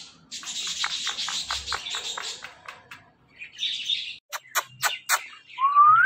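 Indian ringneck parakeet chattering in a rapid run of short, high chirps, then a few sharp clicks and a short rising squeak near the end.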